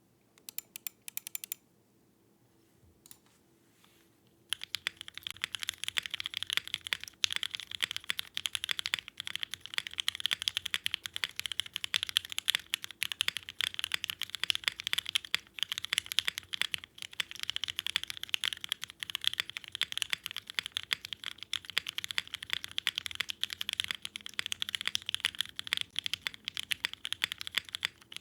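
Continuous fast typing on a mechanical keyboard with lubed JWICK Black full-nylon linear switches on an aluminium plate and ABS keycaps, starting about four seconds in after a few separate key presses.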